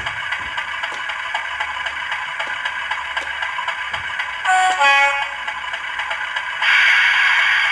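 Model Class 50 diesel locomotive's sound decoder playing engine running sound through its small loudspeaker. About halfway through, the two-tone horn sounds briefly, and near the end the engine sound grows louder.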